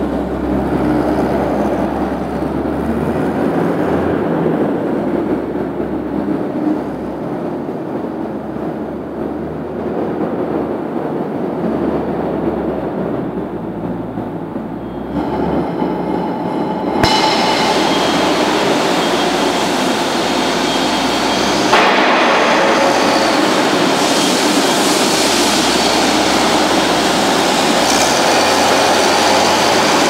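WS65 skid steer loader's engine running as the machine drives about. It grows louder and brighter from about halfway through, with a further step up about 22 seconds in.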